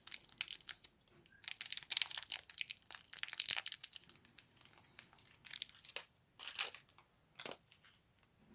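Small plastic packets crinkling as they are handled and torn open, in several irregular bursts of crackling with short pauses between.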